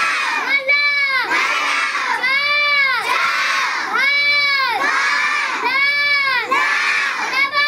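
A class of young children chanting Hindi syllables aloud in unison, led by a pointer on the blackboard. Each drawn-out chanted line rises and falls in pitch, repeating about every second and a half.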